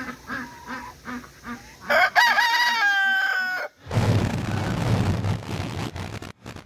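A rooster gives a few low clucks, then crows once about two seconds in, a long call that rises and then holds its pitch. Shortly before four seconds the crow cuts off and a loud, harsh noise with a deep rumble takes over, the sound effect of an animated logo.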